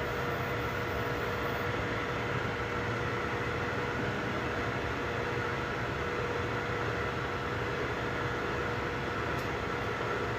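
3D printers running mid-print: a steady whirring machine hum with a few held whining tones over it.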